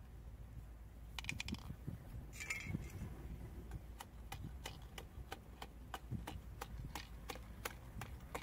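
Small knife clicking against the inside of a giant freshwater mussel's shell as its flesh is cut, about three sharp clicks a second from about four seconds in. Two brief squeaky sounds come before that.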